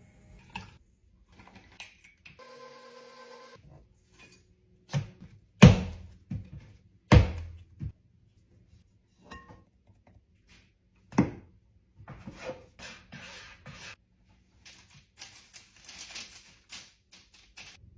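Kitchen work sounds while burger buns are prepared: a few sharp knocks and thuds of items set down on a counter, a brief steady hum, then a stretch of scraping and rustling.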